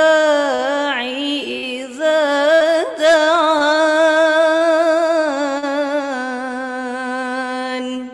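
A woman reciting the Quran in melodic tajwid style, drawing the words out in long ornamented phrases. From about three seconds in she holds one long wavering note, which ends sharply near the end.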